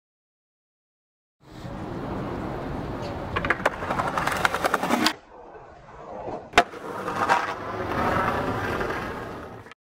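Skateboard wheels rolling over stone paving, starting after about a second and a half of silence. A run of board clacks comes a few seconds in, then one sharp crack past the middle, then more rolling until the sound cuts off just before the end.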